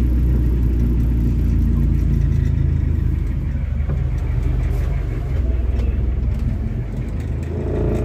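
Fishing boat's engine running steadily with a deep hum, easing a little in level about three seconds in.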